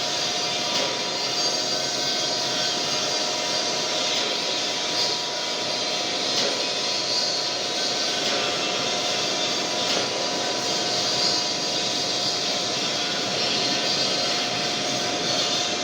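Metal lathe running steadily: an even machine hiss with a constant whine that does not change pitch.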